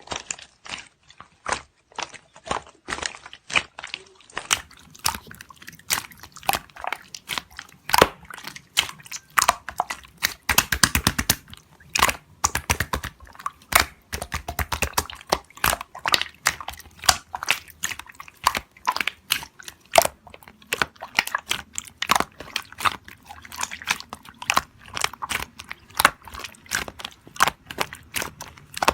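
Slime being squeezed and poked by hand, making a rapid stream of sharp crackling clicks and pops, several a second, with a denser run about ten seconds in.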